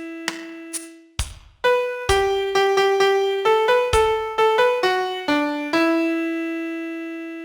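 Piano playing a song melody one note at a time, with a few deep bass notes under it, then settling on one long held note that slowly fades.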